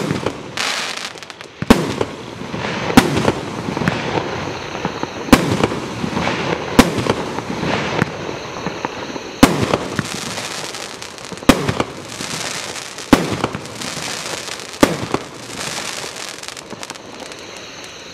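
Joker's Wild 1.3G firework cake firing: about nine sharp shots, one every two seconds or so, over a continuous crackle from the bursting stars, dying away near the end.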